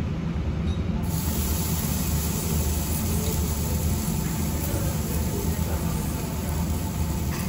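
A thin slice of meat laid on a hot tabletop yakiniku grill starts sizzling suddenly about a second in, a steady hiss that keeps on, over a low steady hum of ventilation.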